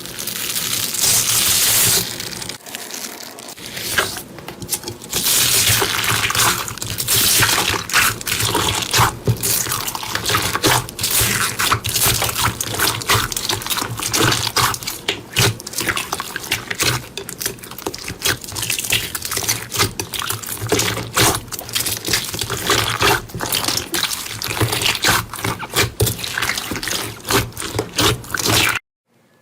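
Slime being squished and worked by hand: a dense run of wet clicks and pops over a hissy, liquid haze that cuts off suddenly near the end.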